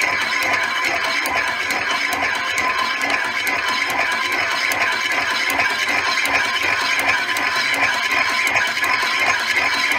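Prototype oval-ring air engine mock-up running, its rotating oval ring driving the piston in and out of its cylinder, with a steady fast clatter over a steady tone. The builder puts the noise down to the piston being loose in the prototype cylinder.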